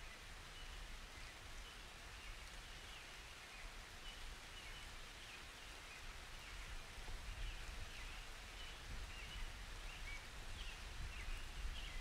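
Light, steady rain falling, with faint high chirps repeating through it and the rain slowly building toward the end.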